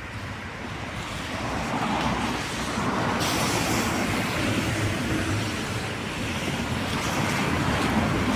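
Road traffic on a wet street: a steady hiss of tyres that swells over the first few seconds and then holds.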